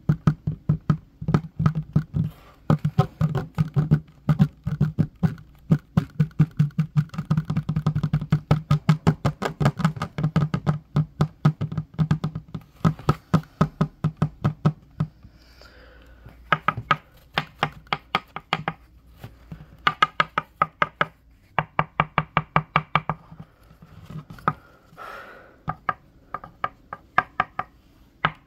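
Fingertips and fingernails tapping quickly on a wooden tabletop, several taps a second, each with a low hollow thud. About halfway through the thud drops away and the tapping comes in short, lighter runs with brief pauses between them.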